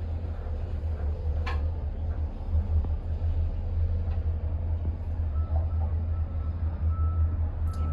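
Steady low rumble inside a moving Disney Skyliner gondola cabin as it travels along the cable, with a single click about a second and a half in.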